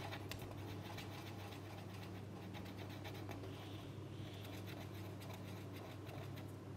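Felt-tip marker scratching on paper in many small, quick strokes as it colours in a small area; faint, over a steady low hum.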